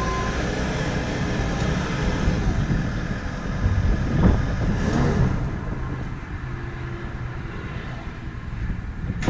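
Bobcat compact track loader's diesel engine running, with a hydraulic whine as the bucket is lowered and a thump about four seconds in as the bucket sets down on the ground. The engine noise then drops to a quieter level about six seconds in.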